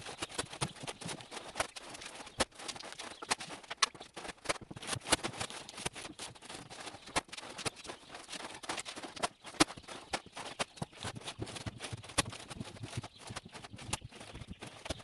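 Rapid, irregular footsteps and knocks from someone hauling 50-lb paper feed sacks and dropping them onto a wooden pallet stack, the sound sped up along with the footage.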